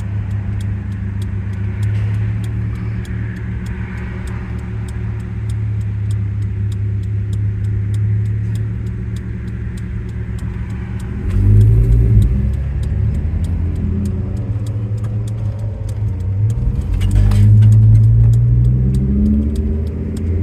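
Car engine and tyre noise heard from inside the cabin while driving at speed. About eleven seconds in the engine grows louder and its pitch rises as the car accelerates, and it rises again a few seconds before the end.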